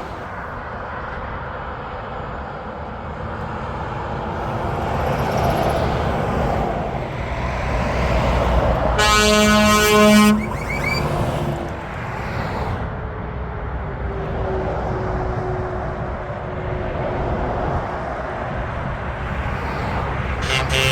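Trucks and cars passing on a motorway, with a steady rush of tyres and engines. About halfway through, a truck's air horn blasts for about a second and a half.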